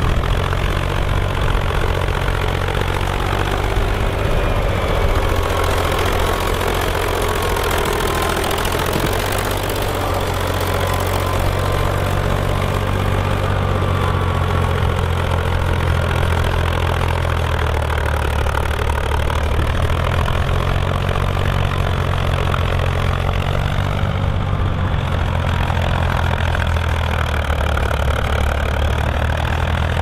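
Small vintage diesel tractor engine running steadily under load while pulling a mounted plough through the soil, its low beat holding an even pitch with only slight shifts.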